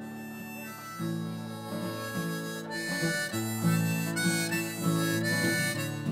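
Background music: a harmonica playing a melody of long held notes over guitar, the instrumental opening of a folk-blues song, growing louder about a second in.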